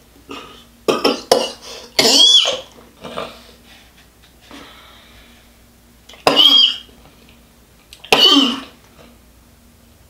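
A man coughing hard: a run of coughs in the first few seconds, then two more single loud coughs about six and eight seconds in.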